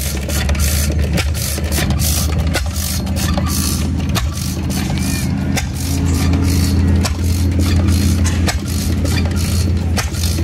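Antique Witte stationary gas engine running very slowly and cold, with short clicks and knocks a few times a second over a steady low hum.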